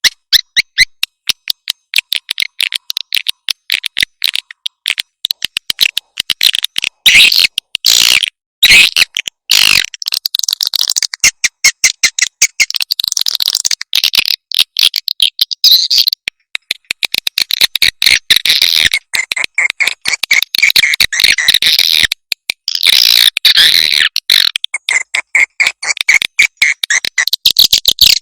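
Edible-nest swiftlet calls from a lure track: dense, rapid high-pitched chirping and twittering, many chirps a second, with flurries of overlapping calls.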